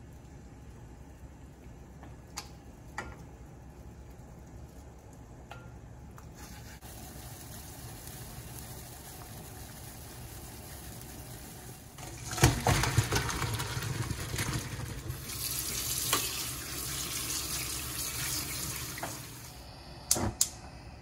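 Water running from a kitchen tap for several seconds around the middle. Near the end, two sharp clicks as a gas stove's burner knob is turned on.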